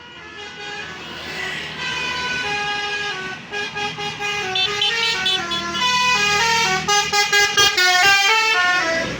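Bus 'telolet basuri' multi-trumpet horn playing a tune of quick stepped notes, growing louder over the first few seconds. Near the end the notes turn choppy and rapid.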